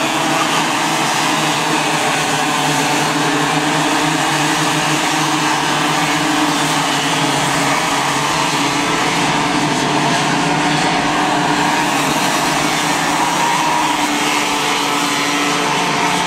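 Several Raket-class racing karts' two-stroke engines buzzing together as the pack circulates, a steady drone whose pitches waver slightly up and down.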